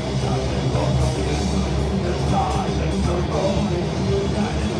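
Heavy metal band playing loud, live: distorted guitars, bass and drums, with cymbal hits all through.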